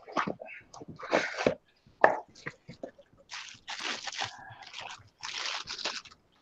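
A cardboard box being slid open and a tool pulled from its plastic bag and unwrapped: irregular crinkling of plastic and scraping of cardboard.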